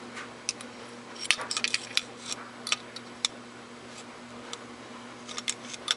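Small sharp metallic clicks and clinks of Tokarev TT-33 pistol parts being handled and fitted together by hand, scattered, with a run of them about a second and a half in and another near the end.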